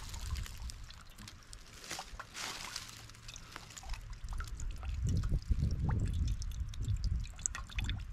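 Water trickling and dripping from a hanging Katadyn BeFree filter flask into a small metal pot, the drops coming thicker in the second half. A low rumble sounds midway.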